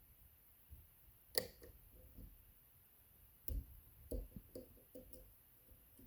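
Small sharp clicks and taps of lock picks working in a dimple camlock: one crisp click about a second and a half in, then a cluster of several clicks a couple of seconds later.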